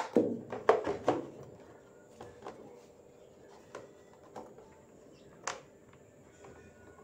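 Hard plastic clicks and knocks as the washing machine's replacement control module, in its black plastic case, is handled and pressed into the plastic control panel. Several sharp knocks come in the first second or so, then a few scattered light ticks, one a little louder about five and a half seconds in.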